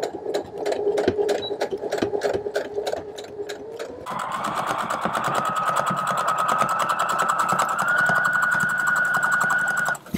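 Brother electric sewing machine stitching down the edge of a four-layer canvas strap. It runs slowly, stitch by stitch, for about four seconds, then speeds up to a fast, steady run with a higher motor whine, and stops just before the end.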